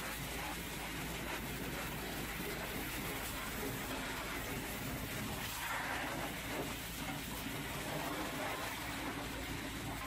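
Pressure washer lance spraying a high-pressure jet of water against a metal box under a truck's frame: a steady hiss of spray and spatter on the steel.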